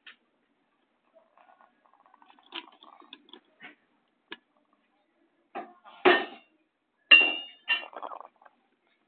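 A scattered series of short clinks and knocks, the loudest about six and seven seconds in, one of them ringing briefly.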